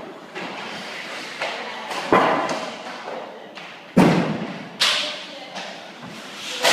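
Hockey pucks being shot: sharp cracks of sticks hitting pucks and pucks thudding into the rink boards, five or six separate hits with the loudest about two, four and five seconds in.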